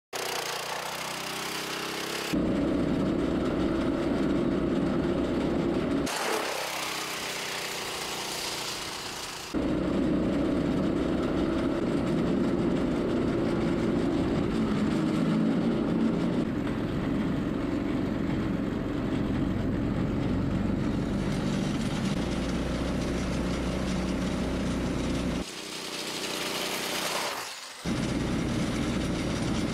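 Small gasoline engine running, heard in several clips cut together with abrupt changes in level; just after six seconds in, its speed falls away for a moment.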